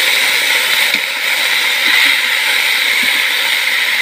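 Sliced potatoes and roasted neem leaves sizzling steadily in hot oil in a kadai as they are stirred with a metal spatula, the potatoes freshly added.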